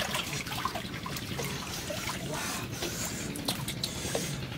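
Shallow stream water trickling steadily, with small splashes from hands groping in the water to catch a fish.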